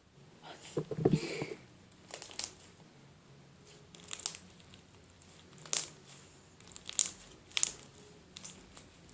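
Slime being squeezed and stretched by hand, giving irregular sharp crackles and pops about once a second, with a longer, fuller squelch about a second in.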